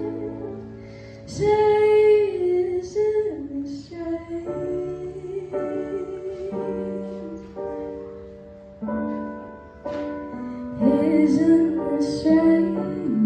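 A woman singing with electronic keyboard accompaniment: long held sung notes over sustained keyboard chords, with louder vocal phrases about a second in and again near the end.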